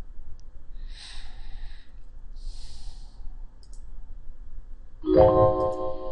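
Faint computer mouse clicks, then about five seconds in a short, loud, pitched chime from the computer as the MetaTrader 4 trading platform starts up.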